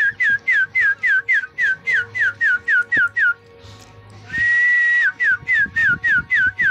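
A person whistling to call up the wind: a quick run of short, falling whistle notes, about three or four a second. After a pause, about four seconds in, comes one long held note, then another run of falling notes.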